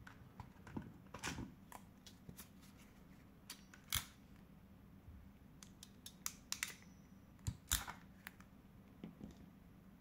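Parkside ferrule crimping pliers handled and squeezed shut on a 0.5 mm² wire end ferrule: a scatter of sharp mechanical clicks and snaps from the ratcheting jaws and handles. The loudest clicks come about 4 s in and in a cluster near 8 s.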